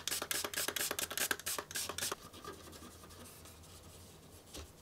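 Quick, repeated scratching strokes on a circuit board for about two seconds, then only faint sound: the dirty, corroded Commodore 64 motherboard being scrubbed clean.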